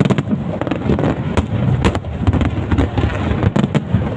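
Fireworks display going off: a dense, continuous run of bangs and crackling pops over a low rumble.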